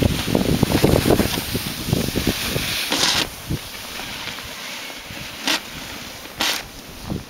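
Wind buffeting the microphone of a moving camera, heavy and choppy for the first three seconds, then easing to a steady hiss broken by a few short bursts.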